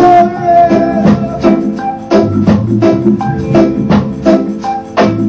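Reggae music, an instrumental stretch between sung lines, with drums and percussion keeping a steady beat under sustained instrument notes.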